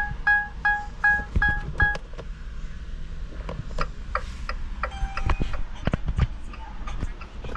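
Rapid electronic beeping, about two and a half beeps a second, stopping about two seconds in; then scattered clicks and knocks, with a short electronic tone about five seconds in.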